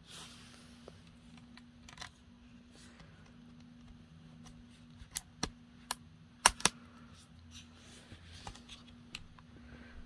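Fingers working a laptop battery cable's plastic connector into its motherboard socket: scattered small clicks and taps, with a quick run of sharp clicks about five to seven seconds in, the loudest a pair close together.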